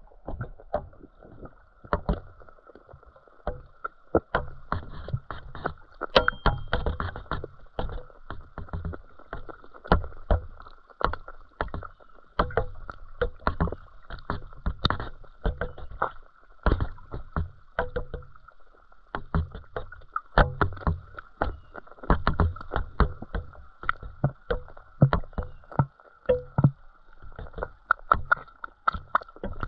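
Underwater sound picked up by a submerged action camera beside a floating feeder rig: irregular clicks and knocks, often several a second in clusters and often with low thumps, over a faint steady high hum. It fits water moving the rig and the wire feeder and fish striking at the bread.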